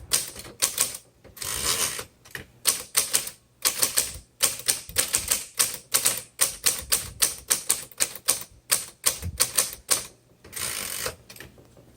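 Typing on a 1956 Hermes Rocket portable typewriter: a quick, uneven run of key strikes, about three or four a second, broken by two longer rasping stretches, one about a second and a half in and one near the end.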